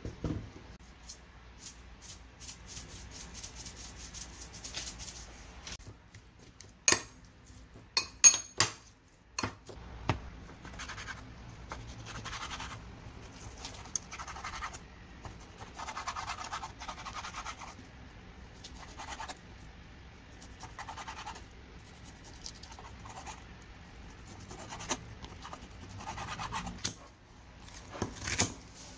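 Kitchen prep: a fast scratchy rattle, then a few sharp knocks about seven to nine seconds in, then a knife slicing raw pork belly on a wooden cutting board in repeated strokes. Near the end, scissors snip kimchi in a bowl.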